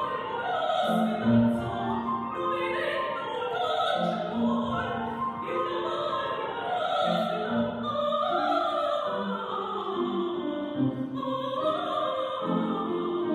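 A woman singing opera in a trained classical voice with vibrato, accompanied by a grand piano.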